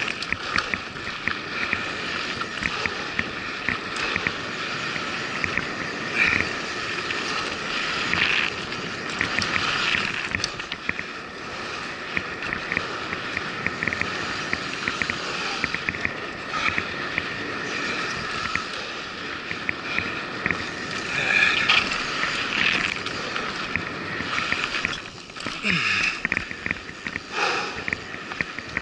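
Bicycle riding fast down a dirt trail: tyres running over dirt and loose leaves, with constant rapid ticking and rattling from the bike over the bumps, and a few louder jolts about 8, 10, 21 to 23 and 26 seconds in.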